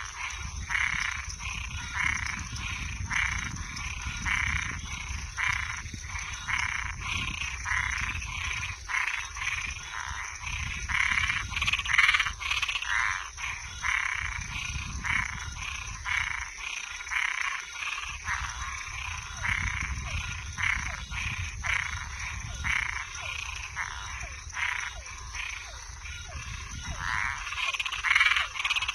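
Night chorus of frogs and treefrogs at a pond: short calls repeating about twice a second, over a steady high-pitched trill and a low rumble.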